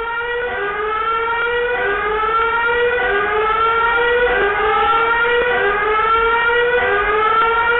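Earthquake early-warning alarm sounding from a school's warning loudspeaker: a loud siren tone that rises in pitch and drops back, over and over, about once a second, signalling that an earthquake's shaking is seconds away.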